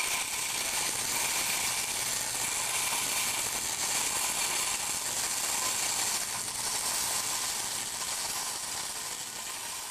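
Wire-feed welding arc crackling steadily as it lays a hardfacing bead on a steel auger flight, getting a little quieter toward the end.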